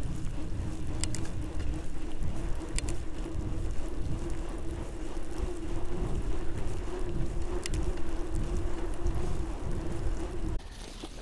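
Outleap Hercules fatbike riding over packed snow: a steady low rumble from the wide tyres with wind on the microphone, a steady hum and a few sharp clicks. It cuts off abruptly near the end.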